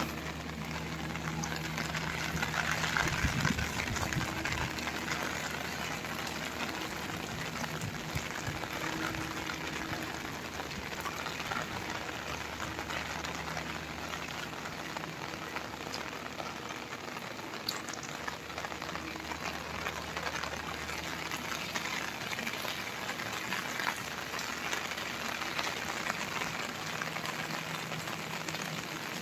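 Steady rain falling, an even hiss of noise, with a faint low hum underneath.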